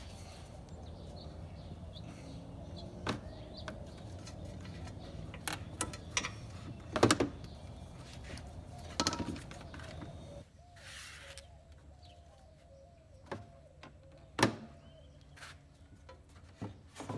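Scattered clicks and knocks of hands and tools working the fuel hose clamp and plastic gas tank of a riding lawn mower, with a bird chirping faintly in the background in the second half.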